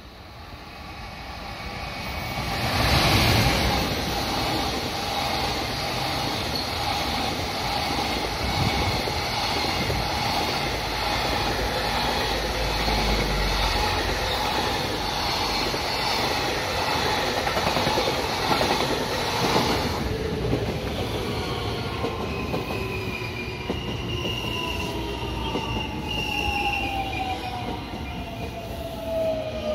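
A container freight train runs through the station close by: the locomotive comes up loud, then the wagons follow with a steady rumble and wheel noise. Then a JR West electric commuter train comes into the platform, its motors whining down in pitch as it slows.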